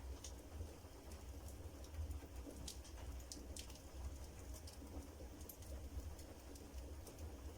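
Firewood burning in a fireplace, crackling with scattered sharp pops and ticks over a steady low rumble.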